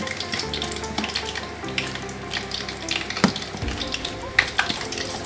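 Wet weci batter of shredded carrot, minced chicken and flour being stirred with a fork in a plastic bowl: a wet crackling mix with sharp clicks of the fork against the bowl, the loudest about three and four and a half seconds in. Soft background music plays under it.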